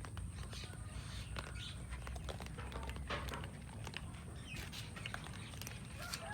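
Cats eating: irregular small clicks and ticks of chewing over a steady low rumble.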